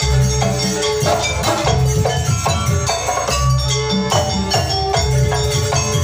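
Live Javanese jaranan music played by a small ensemble with keyboard and drums, with a deep beat recurring about every second and a half under a steady melody and quick light percussion.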